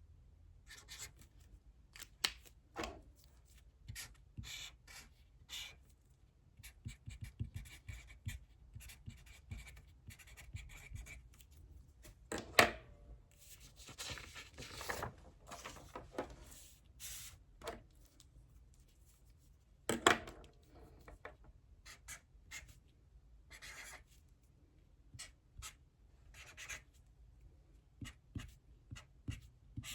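Hand writing on paper: short, scratchy strokes in irregular runs, with two louder sharp taps, about twelve and twenty seconds in.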